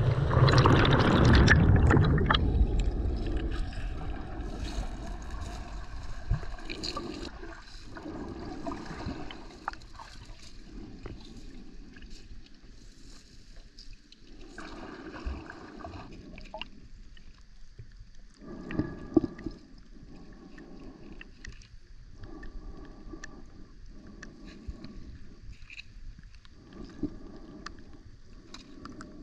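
Thermal water gushing and splashing from a stone spout for the first couple of seconds, fading away. Then muffled underwater water noise from a submerged camera, swelling and fading every second or two.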